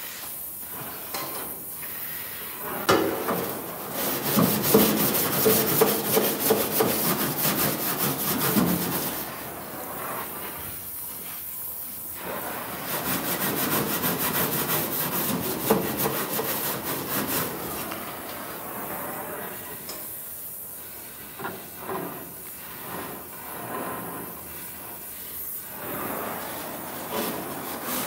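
Metalwork on a rusted steel car door, a gas torch throwing sparks against the panel: rasping, crackling noise in two long stretches, a few seconds in and again around the middle, with quieter scraping between and after.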